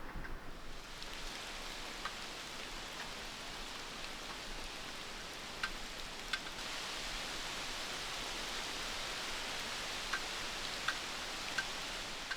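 Steady rain falling, with a few louder single drops standing out now and then.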